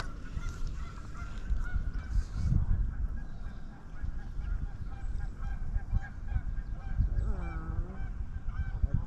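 Geese honking, with one longer, clearer honk about seven seconds in, over low rumble and knocks.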